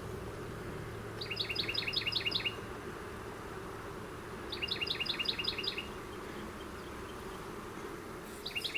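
A songbird sings three short, rapid trills of quickly repeated chirps, each lasting about a second and spaced a few seconds apart. Under them runs a steady low hum of honeybees flying around the open hive.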